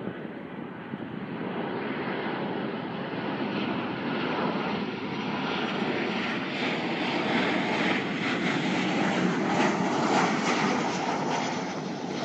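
Boeing 737-800 airliner's CFM56 jet engines and rolling noise heard from inside the cabin, a steady rushing that grows a little louder about halfway through.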